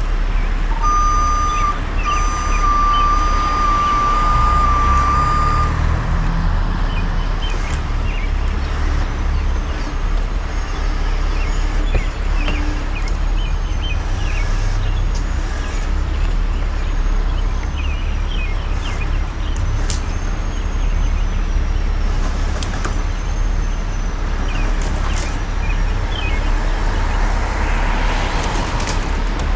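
Heavy rotator tow truck's diesel engine running steadily. A high electronic warning tone beeps for the first few seconds.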